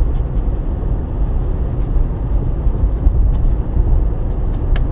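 Steady low rumble of a vehicle driving, heard from inside the cabin, with a few faint ticks late on.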